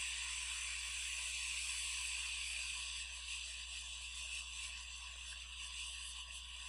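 Steady hiss of blowing air with a low hum underneath, from a hot air rework station reflowing a small chip on a circuit board, along with a running fume extractor fan. It eases slightly about halfway through.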